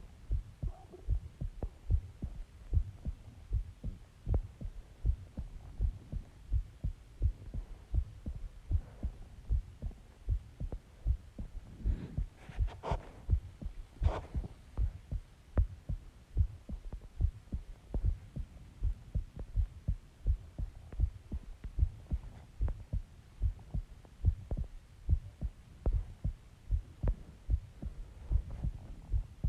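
A person's heartbeat picked up close by a recording device: a steady, even rhythm of low thumps. A few brief scratchy sounds come in near the middle.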